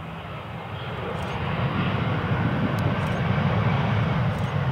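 Airbus A320 jet engines on a landing roll-out just after touchdown. Their low rumble and rush swell to a loud, steady level over the first two seconds as reverse thrust builds.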